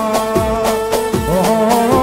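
Live band playing an Arabic song: a sustained, ornamented melody over a steady drum beat, with the keyboard in the band.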